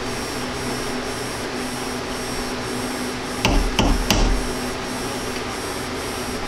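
Three quick light taps of a wooden mallet on the mini lathe's tool setup, just past halfway, over a steady hum. The taps nudge the setting into alignment against a dial indicator, to within a thousandth of an inch.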